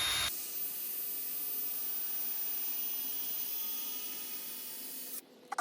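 Power drill boring a hole into wood, running steadily with a hissing, whirring sound, then stopping abruptly near the end.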